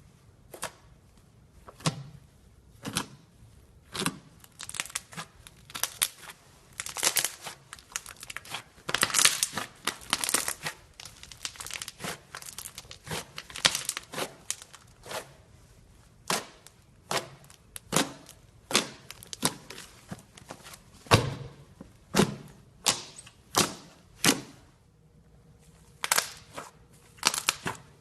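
Fluffy slime being worked by hand, giving irregular crackling clicks and small pops, single and in dense clusters, with short pauses between.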